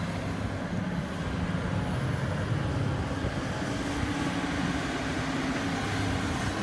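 Steady low engine drone with a hum that holds one pitch throughout, the running of a heavy vehicle's engine.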